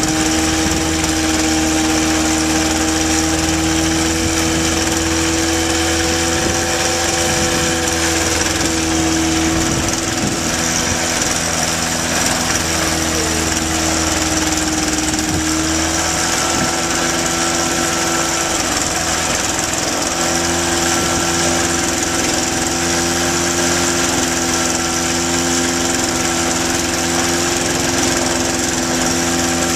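Kitfox light aircraft's engine and propeller running steadily on the ground during an engine test run, the engine speed shifting slightly a few times.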